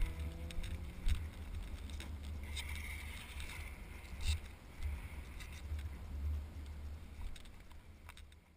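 Gusty wind rumble on an action camera's microphone, with scattered knocks as the camera is moved about. A motorcycle engine's slightly rising note fades out about a second in.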